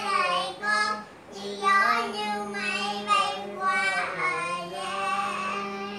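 A young boy singing a Vietnamese children's song in a steady tune of held notes, with a short break about a second in.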